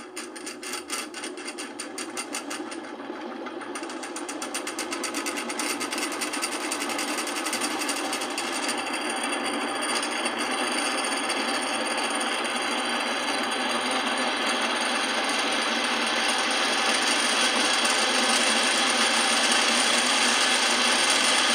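Mueller spin dryer's electric motor starting on a replacement capacitor and spinning up: a rapid rattling that quickens and smooths into a steady whirr, growing louder as it gains speed. The motor runs, so the new capacitor works.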